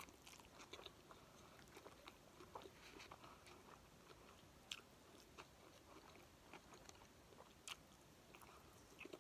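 Faint chewing and soft mouth clicks of a person eating a chicken cheesesteak sub and french fries, with two slightly louder clicks, one around the middle and one near the end.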